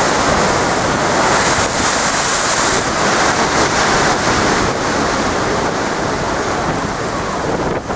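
Loud, continuous storm surf: big waves breaking and washing against a sea wall, with a brighter hissing rush about two seconds in, and wind buffeting the microphone.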